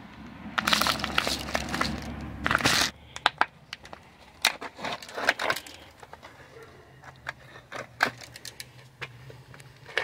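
Thin plastic drink bottles crinkling for about two seconds as a seed-filled bottle is turned upside down and fitted into a cut-off bottle base. Then come scattered clicks and taps of plastic.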